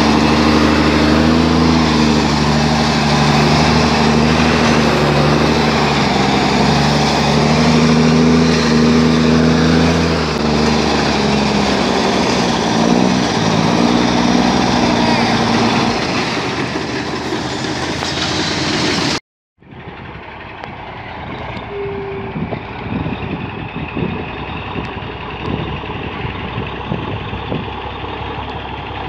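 Heavy diesel log truck engine running steadily as the loaded truck creeps along. About two-thirds of the way through, after a sudden break, a log truck's engine runs again, quieter and duller.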